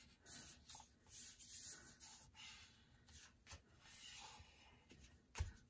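Faint rustling and rubbing of paper as a folded book page is slid into line and smoothed flat by hand, in short intermittent strokes. A soft knock comes near the end.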